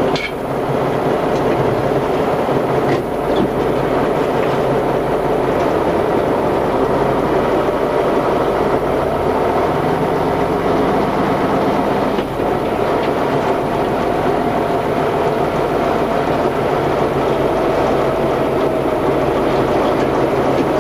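Tatra 813 Kolos truck's air-cooled V12 diesel running steadily while the truck drives off-road, heard from inside the cab. A thin whine joins in about halfway through.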